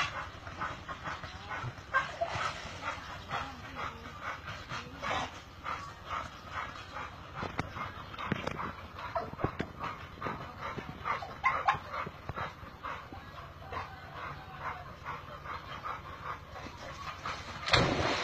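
A dog barking again and again, then near the end a sudden splash as a dog drops into the water.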